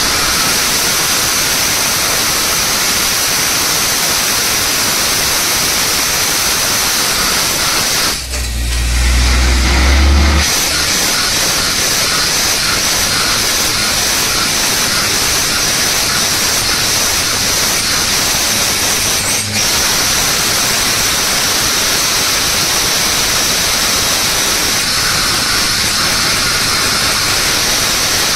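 Borewell drilling rig running: a loud, steady hiss of compressed air and spray blowing out of the bore over the rig's engine. About eight seconds in the hiss drops out briefly and a deep rumble takes over for about two seconds before the hiss returns.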